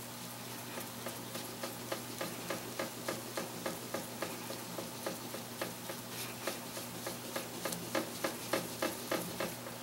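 French-polishing pad rubbed in quick, even strokes over the sewing machine's shellacked bed, a soft swish about three times a second starting about a second in. The pad carries a little oil so the cloth glides on the still-tacky shellac.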